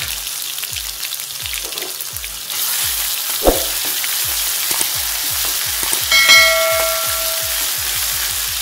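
Mustard seeds, curry leaves and ginger-garlic paste sizzling in hot oil in a stainless steel pan as a spatula stirs them. The sizzle grows louder about two and a half seconds in, and the spatula knocks once against the pan about a second later. Past the middle a bell-like chime from the on-screen subscribe animation rings for about a second and a half.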